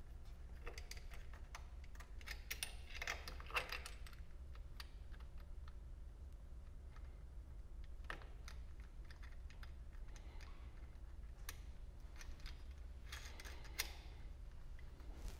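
Faint, scattered small clicks and rattles of hands fitting a flexible metal conduit connector and lead wires into a circulator pump's conduit box, over a steady low hum.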